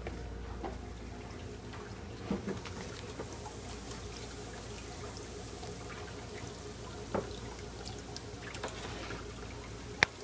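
Water running and trickling steadily over a low steady hum, with a few light knocks and a sharp click near the end.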